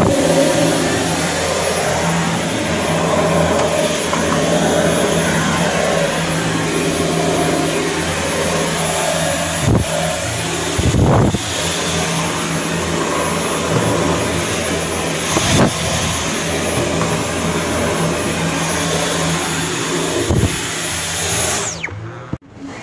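Vacuum cleaner with a brush nozzle running steadily as it cleans cabinet shelves, a steady rush with a thin high whine, with a few brief knocks of the nozzle against the shelves. It cuts out near the end, the motor winding down.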